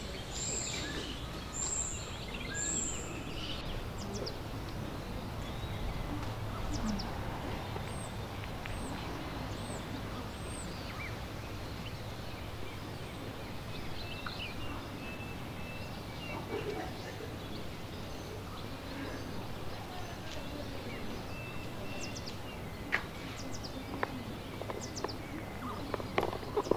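Outdoor ambience: a steady background of faint, indistinct voices over a low hum. Short, high bird chirps come in a run of four at the start and again about eight seconds in, and a few sharp clicks sound near the end.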